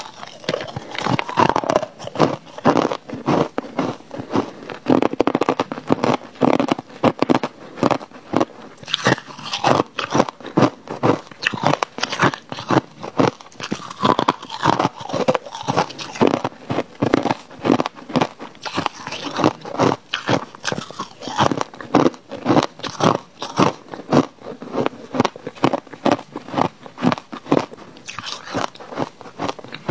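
Crushed white ice being bitten and chewed close to a clip-on microphone: a continuous run of crisp crunches, several a second.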